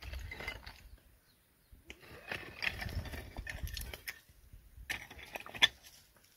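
Irregular crunches and clicks of footsteps on loose stones and dry grass, over a low rumble; a lull about a second in, then busier from about two seconds in.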